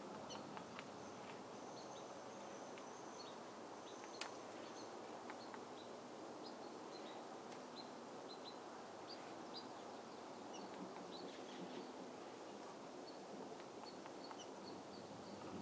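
Faint outdoor ambience: a steady background hiss with small birds chirping here and there, short high chirps scattered throughout. A brief high trill comes early, and a single sharp click sounds about four seconds in.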